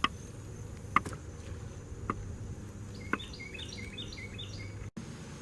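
Riverside outdoor ambience with a steady low background, a run of quick repeated chirps from a bird or insect a little past the middle, and four sharp ticks about a second apart. The sound drops out for an instant near the end.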